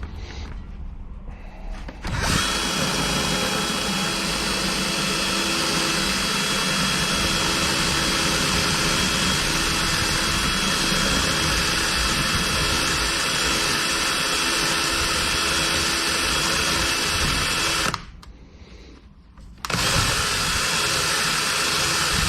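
Electric power tool running steadily while cleaning the brake caliper bolts. It starts about two seconds in and runs for about sixteen seconds, stops briefly, then starts again near the end.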